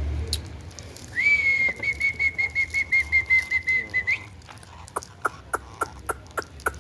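Indian ringneck parrot whistling one steady note with a fast warble for about three seconds, then giving a run of short, sharp chirps, about three a second.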